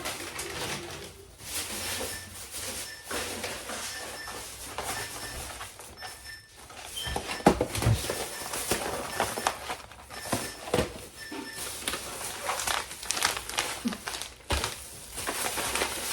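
Groceries and plastic bags being handled: irregular rustling, knocks and clunks of packages being moved and set down, with one louder knock a little past the middle. A faint, evenly repeated high beep sounds for several seconds behind it.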